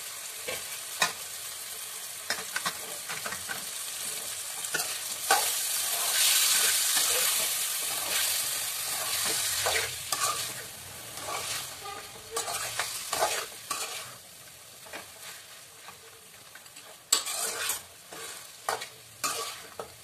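Raw mutton pieces frying with onion and tomato in a metal kadai, sizzling while a steel spoon stirs and scrapes through them, with sharp clicks of the spoon against the pan. The sizzle swells for a few seconds early in the stirring, then dies down, leaving mostly spoon clicks and scrapes.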